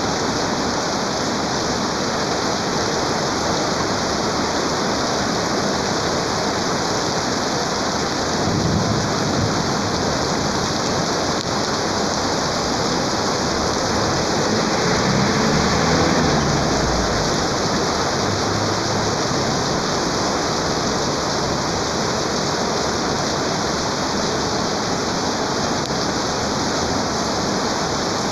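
Heavy rain pouring down in a steady, dense hiss. A low rumble swells up briefly about halfway through.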